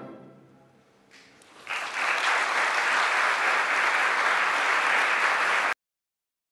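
The orchestra's final chord rings away in the hall, then an audience breaks into applause about a second and a half in, steady until it cuts off suddenly near the end.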